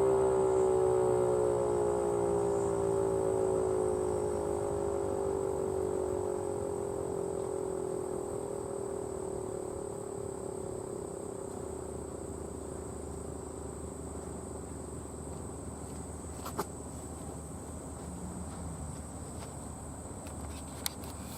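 Federal Signal 508 outdoor warning siren winding down at the end of its Alert test cycle, its tone slowly sliding lower and fading out over about ten seconds. A steady high-pitched insect drone runs throughout, and there are two sharp clicks near the end.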